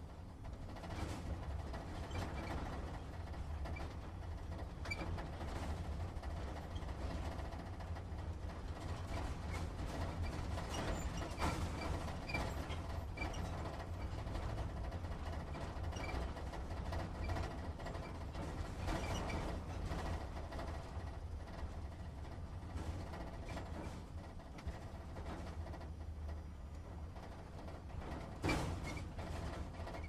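Truck engine rumbling low and steady, heard from inside the cab as the truck idles and rolls slowly, with creaks and small rattles from the cab throughout. There is a louder knock or jolt near the end.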